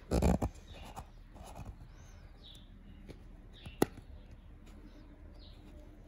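Fingers rubbing and picking wet lint off the plastic lint filter of a Panasonic washing machine. There is a burst of handling noise at the start, then faint squeaks of skin on wet plastic and one sharp click a little before four seconds in.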